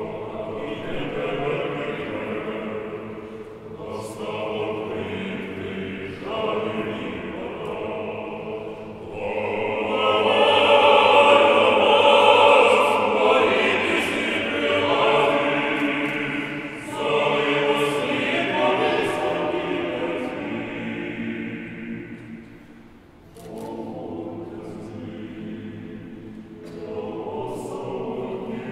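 Men's choir singing a cappella in slow, held chords. It swells to its loudest about ten seconds in, eases off, and dips briefly a little over twenty seconds in before going on.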